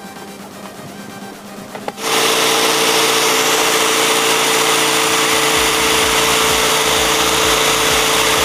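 Cordless drill driving a reciprocating saw adapter, its blade sawing through PVC pipe. It starts suddenly about two seconds in and runs at a steady motor pitch, with a low rapid chatter of the blade strokes joining about halfway through.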